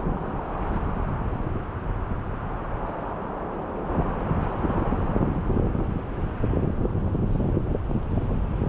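Strong, gusty north wind buffeting the microphone, a low, uneven rumble that rises and falls with the gusts.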